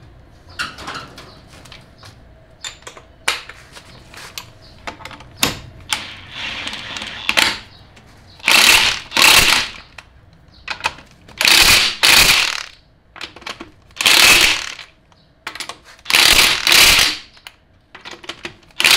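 Impact wrench fitted with a torque stick tightening wheel lug bolts in four runs of about a second each in the second half, the torque stick limiting how tight the bolts go. Before that, light metal clicks as the bolts and socket are fitted by hand.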